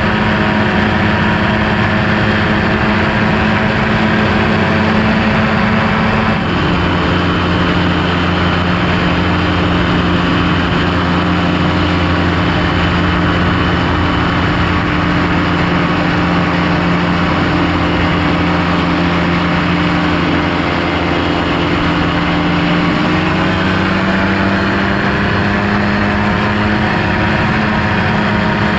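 Quicksilver MXL-2 light airplane's engine and propeller running steadily. The pitch drops suddenly about six seconds in, then rises gradually a few seconds before the end.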